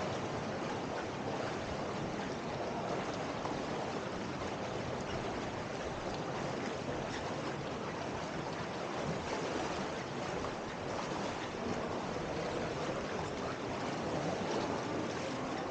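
Shallow river water flowing and rippling close by, a steady even wash with no pauses.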